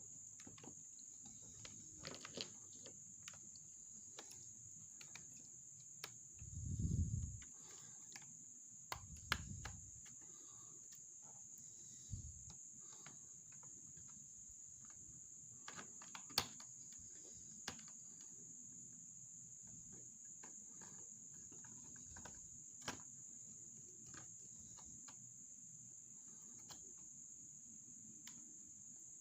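Faint scattered clicks and snaps of plastic as a prying tool is worked around the edges of an HP 15 laptop's back plate, releasing its clips, with two dull knocks about seven and nine seconds in as the laptop is handled. A steady high-pitched whine sits underneath.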